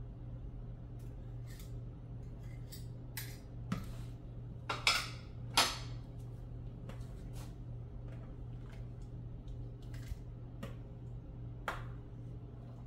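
A spatula and spoon clinking and scraping against a cooking pot as porridge is stirred: scattered short strokes, with a louder run of scrapes about five seconds in, over a steady low hum.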